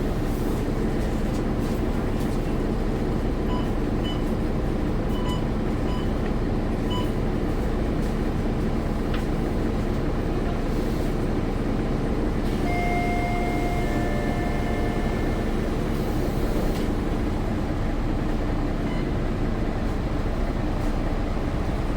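Steady engine and road rumble inside a bus cabin. A run of about seven short electronic beeps comes a few seconds in, and a longer electronic tone that steps in pitch sounds about midway.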